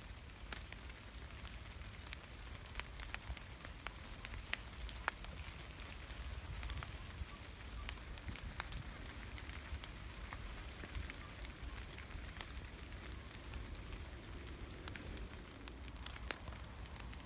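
Gentle rain falling in a forest: a steady soft patter with many scattered, sharper individual drops landing close by.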